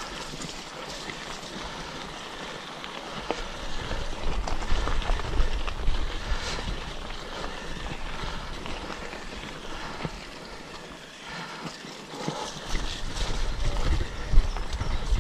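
Bicycle rolling fast down a gravel dirt track: tyres crunching over stones, with the bike rattling and clicking over bumps and wind rumbling on the microphone. The rumble and rattle grow louder near the end.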